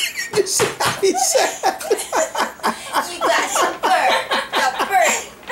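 People laughing, a long run of short repeated laughs, several a second, easing off near the end.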